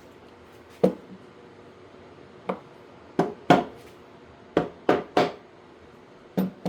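Hammer tapping scrap poplar boards into place, eight sharp taps at uneven spacing, some in quick pairs and triples.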